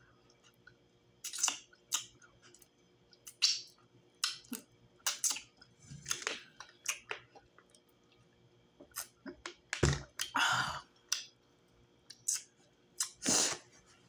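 Close-miked mouth sounds of someone eating fufu with ogbono soup: irregular wet chewing and lip smacks. There is a longer noisy stretch about two-thirds of the way through, when she drinks from a plastic water bottle.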